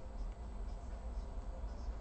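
Steady low background hum with a few faint soft ticks from gloved fingers pressing thermal pads onto a graphics card board.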